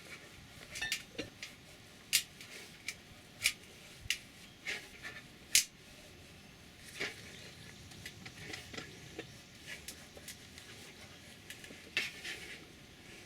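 Scattered sharp clicks and light clinks of small hard objects being handled, about a dozen at irregular intervals, the loudest about two, three and a half and five and a half seconds in.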